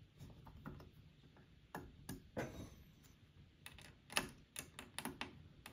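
Allen wrench turning small screws into a metal door-mount bracket: faint, irregular metallic clicks and ticks.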